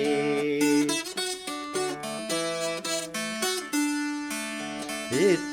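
Appalachian dulcimer playing an instrumental break of plucked melody notes between verses of a folk song. A held note ends about a second in.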